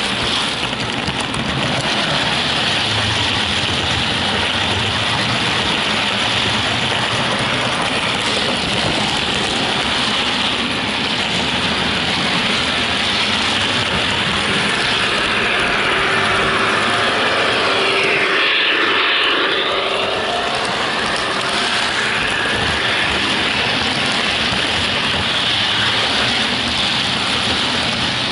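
HO-scale model train running along its track, a steady mechanical rattle of wheels on rail and the drive, heard close up from on board the train. About two-thirds of the way through, the noise takes on a brief hollow, sweeping tone.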